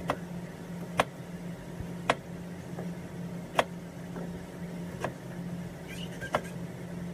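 Kitchen knife cutting a peeled eggplant lengthwise on a plastic cutting board, the blade striking the board in about six sharp taps, roughly one every second or so. A steady low hum runs underneath.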